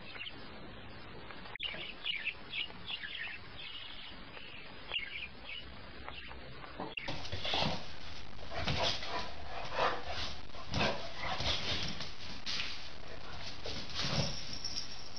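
Dog barking repeatedly, about once a second, from about halfway through. Before that there are only faint short high-pitched squeaks.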